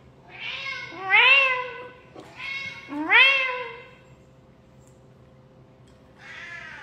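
Two drawn-out meows, each rising then falling in pitch, about two seconds apart, followed by a quieter pause and a fainter call starting near the end.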